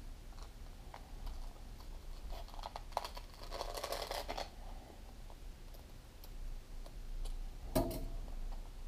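Paper scissors snipping through a sheet of skateboard grip tape, trimming the screw-hole notches deeper, in a scattering of short cuts and clicks. A longer rustling stretch comes about four seconds in, and a louder knock near the end.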